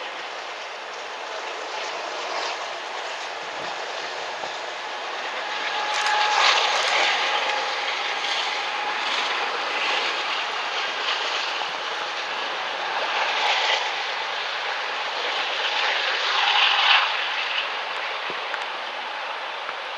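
A freight train rolling past, a steady noise of wheels on rail that swells louder about six seconds in and again near the end.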